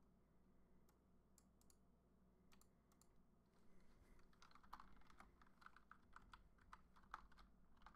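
Faint computer keyboard typing: a few scattered keystrokes at first, then a quicker run of keystrokes over the second half.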